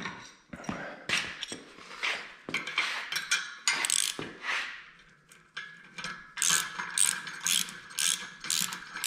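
Socket ratchet wrench clicking as a bolt is tightened. Its strokes come unevenly at first, then settle into a steady back-and-forth of about two strokes a second from about six seconds in.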